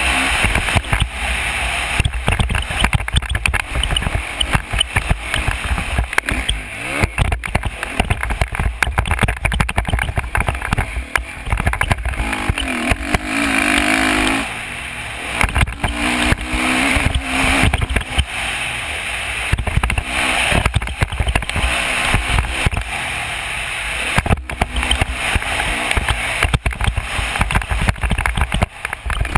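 Dirt bike engine revving up and down as the bike is ridden around a motocross track, buried in heavy wind buffeting on a helmet-mounted camera's microphone. The revs climb noticeably about halfway through.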